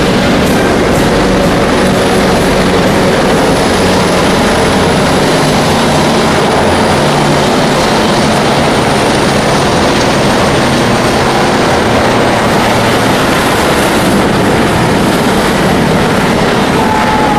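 Diesel engines of camouflaged armoured vehicles running steadily as a column drives past close by, a loud, unbroken engine noise.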